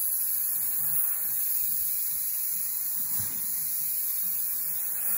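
Airbrush spraying paint with a steady high hiss of air, over a low hum.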